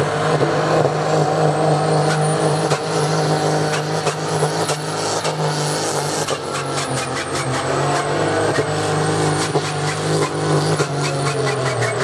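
Diesel engine of a pulling tractor running hard under full load while it drags a weight-transfer sled down the track: a steady, deep engine note with a thin high whine rising and falling above it.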